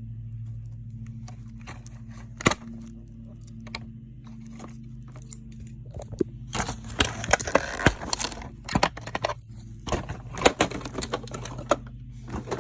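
Doll packaging being pulled apart by hand, plastic and cardboard rustling and crackling. There is one sharp click early, then a long run of clicks and crinkling, over a steady low hum.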